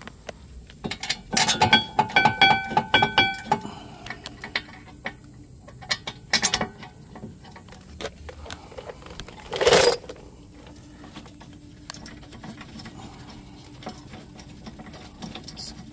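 Steel caliper bracket bolts and the bracket clinking as the bolts are threaded in by hand: a quick run of metallic clicks with a short ringing tone in the first few seconds, then scattered light clicks. One short, louder dull burst of noise comes about ten seconds in.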